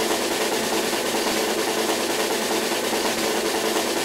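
Snare drum roll, steady and unbroken, the suspense build-up before a winner is announced.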